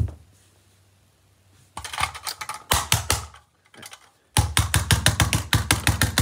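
Screwdriver knocking on a toy car: a single sharp knock, then an uneven clatter of strikes, then a fast, even run of about six knocks a second in the second half.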